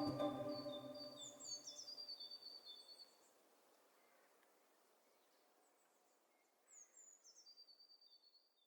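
Soft ambient music fading out, with faint bird chirps in two short bouts: one early, one near the end.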